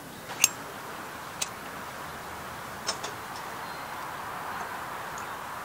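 Four sharp clicks over a steady hiss as a round portable kerosene heater is being lit by hand.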